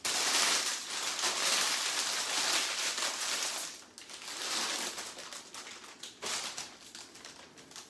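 Clear plastic sleeve crinkling and dried pampas grass plumes rustling as a bunch is pulled out of its wrapping. The crackling is loudest for the first four seconds, then turns to softer rustling.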